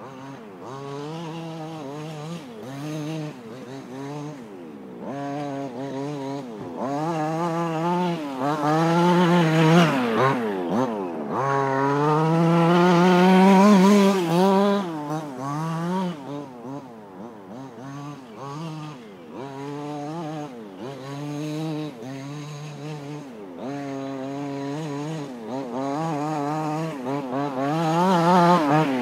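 Two-stroke petrol engine of a 1:5-scale King Motor T2000 4WD RC car with a dual-pipe exhaust, revving up and dropping back again and again as it is driven. It is loudest and highest-pitched around the middle.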